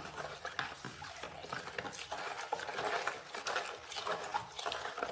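Metal spoon stirring liquid in a plastic bowl, with irregular scraping and clinking against the bowl and light sloshing: fresh yeast, sugar and salt being dissolved in warm milk.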